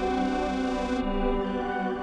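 Background music of long, held chords, with no other sound standing out.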